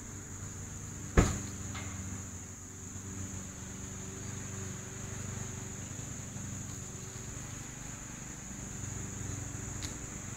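Steady high-pitched insect chorus with a low hum underneath, broken about a second in by a single sharp knock, the loudest sound.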